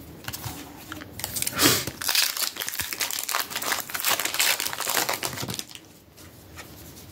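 Foil booster pack wrapper being torn open and crinkled, a dense crackly rustling that starts about a second in and dies down near the end.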